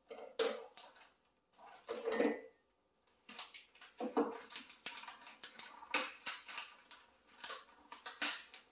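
Gift wrapping being cut and torn open with scissors: irregular crinkling, snipping and tearing, a few separate bursts at first, then dense and continuous from about three seconds in.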